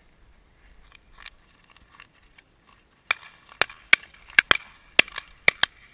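Sharp knocks and clicks in a walking rhythm, about two a second with some in quick pairs, starting about three seconds in: footsteps jolting a worn camera and its mount.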